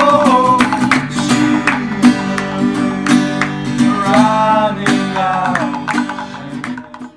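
Acoustic guitar strummed while several young men's voices sing together. The music fades away just before the end.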